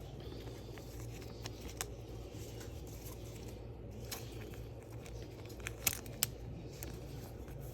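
Trading cards and foil pack wrappers being handled on a table: a few short, sharp clicks and soft rustles over a low steady hum.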